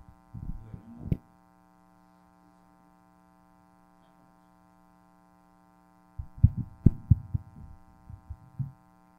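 Microphone being handled and moved on its table stand: a few soft thumps near the start, then a burst of sharp knocks and thumps about six seconds in. A steady electrical mains hum runs underneath throughout.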